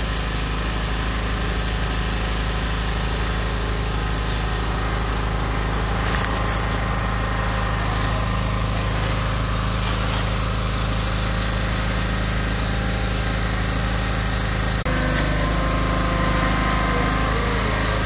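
An engine running steadily with a deep, even hum throughout. The engine sound changes abruptly about 15 seconds in.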